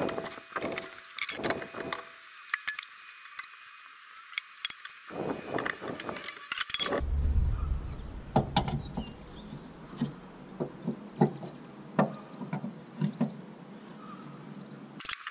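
Metal tools on a caravan wheel: a wheel brace and socket clink and click against the wheel nuts and locking wheel nut as they are worked loose, in irregular sharp knocks with a cluster about six to seven seconds in.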